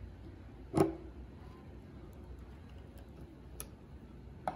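Awl punching pilot holes into the wood board through a cabinet hinge's screw holes: one sharp click a little under a second in, then fainter ticks about three and a half seconds in and near the end.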